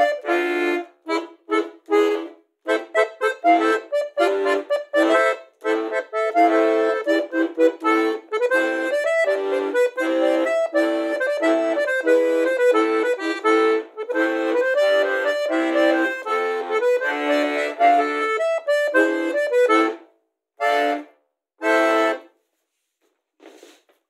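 Bayan (Russian chromatic button accordion) playing a melody with chords, ending with two short detached chords a few seconds before the end.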